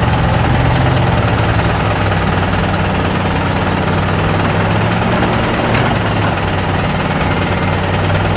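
Heavy engine running steadily with a deep, even hum that drops slightly in pitch about two seconds in.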